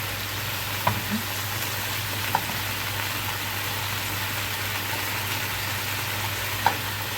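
Chicken pieces sizzling in a little oil in a grill pan: a steady frying hiss, with a few sharp clicks about one second, two and a half seconds and near seven seconds in.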